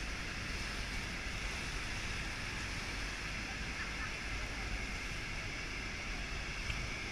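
Steady roar of Niagara Falls' falling water, with wind buffeting the microphone.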